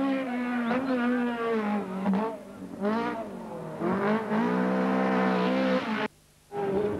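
Racing car engine at high revs: the note holds, drops and dips about two seconds in, then climbs again. It falls once more near the end, and the sound cuts out for about half a second before the engine returns.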